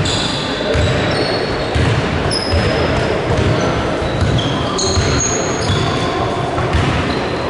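Basketball being dribbled, bouncing repeatedly on the court floor, with sneakers squeaking in short high chirps.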